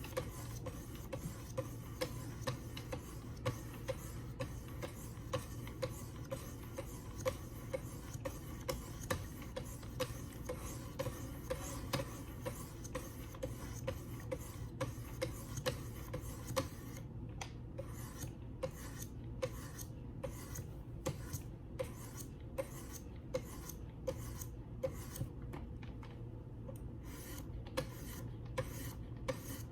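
A knife's D2 steel blade being stroked against 600-grit Wicked Edge sharpening stones: a steady rhythm of short rasping scrapes, each with a light click, the strokes growing more clearly spaced in the later part.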